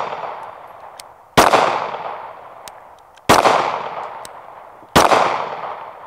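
Three slow, aimed shots from a Glock 48 9mm pistol, spaced about two seconds apart, each a sharp crack followed by a long fading echo.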